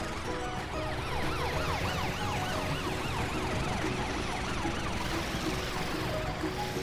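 Emergency-vehicle siren sound effect from the cartoon police car and fire truck, sweeping up and down in pitch quickly and over and over as they race to the scene.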